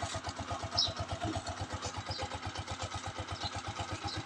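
Honda TMX Alpha 125's single-cylinder four-stroke engine idling steadily with an even, rapid beat. The carburettor idle is set just right, around 1,000 rpm, so it holds a steady idle on a cold morning without choke.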